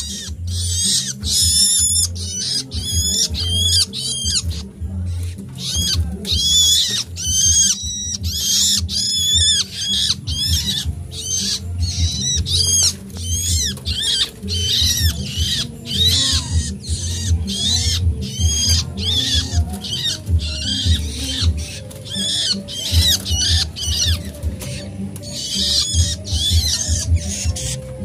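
Nestling songbirds begging for food: a loud, continuous chorus of rapid high-pitched chirping calls. This is the noise of hungry chicks that won't settle until they are fed.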